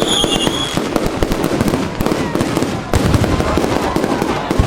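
Fireworks going off in quick, irregular succession, a dense run of bangs and crackles, with a high whistle that carries on into the first second.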